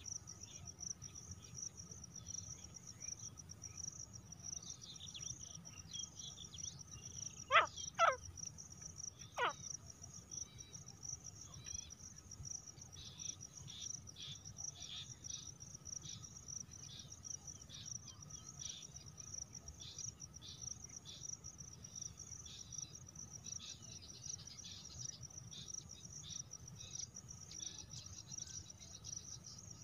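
Steady trilling of crickets, with three short, loud, steeply sweeping call notes from a female grey francolin about seven to nine and a half seconds in.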